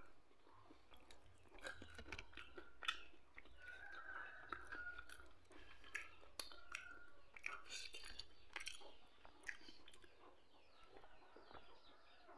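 Faint, close mouth sounds of eating: chewing, lip-smacks and finger-licking clicks, in short irregular bursts.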